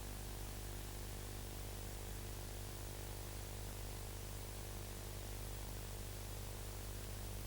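Steady electrical hum, a stack of low even tones, under a faint even hiss, with no programme sound over it.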